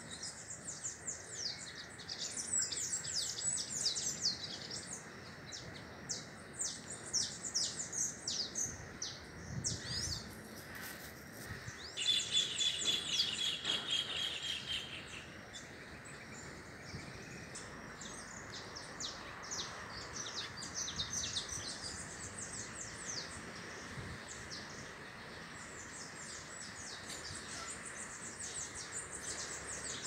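Several small birds chirping with many quick, high, short calls, and a faster trill of rapidly repeated notes about twelve seconds in lasting about three seconds, over a steady outdoor hiss.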